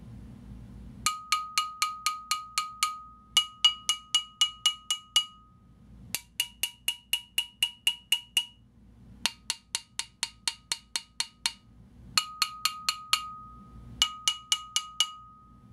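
Stock Sony PS-X800 Biotracer tonearm's metal arm housing struck with a wooden dowel in six quick runs of taps, about four or five a second. Each tap rings with clear metallic tones that carry on between strikes: the stock housing is poorly damped, which he judges 'not too good'.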